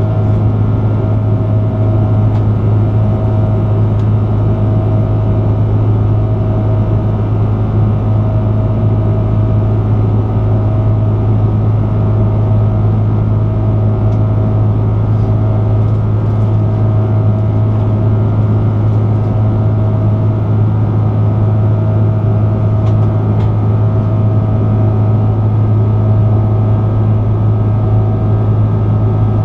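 Steady engine and airflow drone inside the cabin of an Airbus A330-300 in flight, powered by Rolls-Royce Trent 700 turbofans: a deep, even hum with a mid-pitched tone that pulses on and off about once a second.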